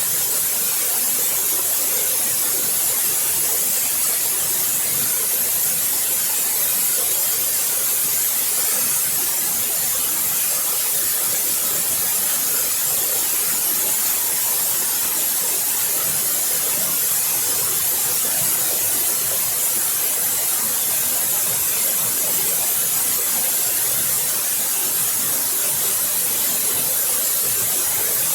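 Waterfall rushing steadily: an even, unbroken hiss of falling water, brightest at the high end.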